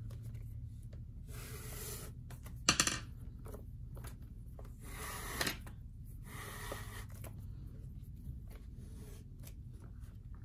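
Leather lace pulled through the web loops of a leather baseball glove with a metal lacing needle: a few short scraping pulls of lace sliding against leather, with one sharp click about three seconds in and small ticks of handling between.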